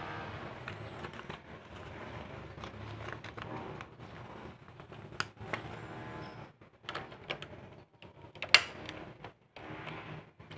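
Scattered clicks and knocks of a screwdriver and plastic parts being handled inside an opened air-conditioner indoor unit during removal of its circuit board, growing more frequent in the second half, with one sharp click about eight and a half seconds in.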